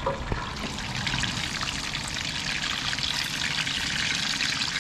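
Butter boiling and sizzling around crawfish in a frying pan on a propane camp stove: a steady crackling hiss. There is a light knock near the start.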